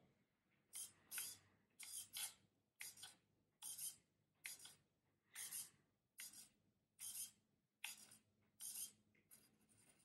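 Blue Bird BMS-101HV metal-gear digital micro servo on 3.7 V, buzzing briefly each time it swings a carbon fibre rod on its horn: about a dozen short, faint, high-pitched rasps, roughly one every three-quarters of a second, some coming in quick pairs. The movements are quick and snappy.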